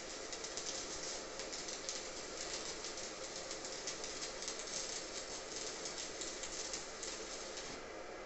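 Stick-welding arc from a Daniu MINI MMA-200 inverter welder: a steady crackle and sizzle as the electrode burns a vertical-up bead on 2 mm steel plate. The arc breaks off near the end.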